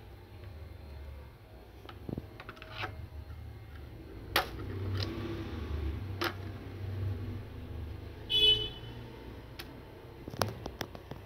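Plastic toy vehicles knocking and clattering as they are moved about by hand, with a few sharp knocks. A short high-pitched toot sounds about eight seconds in.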